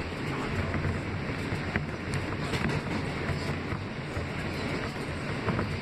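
Inside an R160B subway car while the train runs: a steady low rumble of wheels on rail and running gear, with a few faint clicks and rattles.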